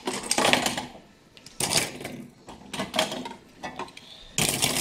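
Fidget spinners clicking and clattering as they are handled, in several short bursts with pauses between.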